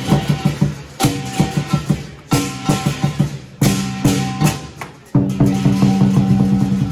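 Lion dance percussion: a big lion dance drum beating a fast rhythm with clashing cymbals and gong, punctuated by four loud accented crashes about a second and a half apart.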